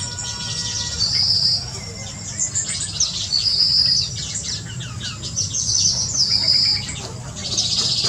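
Mixed birdsong from several birds: many short chirps, with a high warbling phrase repeated about every two to three seconds, over a steady low background hum.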